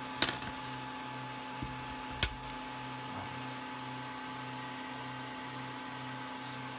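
Steady hum of a running fan with a faint regular pulse. Two sharp clicks about two seconds apart, shortly after the start, as a utility knife and a printed plastic part are handled on a wooden workbench.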